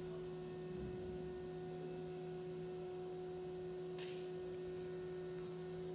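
A steady, even hum holding the same low pitch throughout, with a brief soft crackle about four seconds in.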